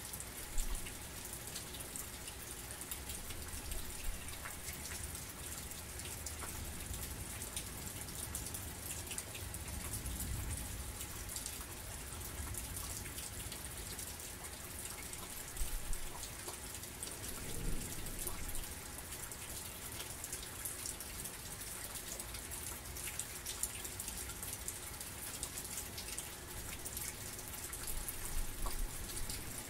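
Heavy rain falling steadily, a dense hiss full of close individual drops tapping, with a few brief low thumps.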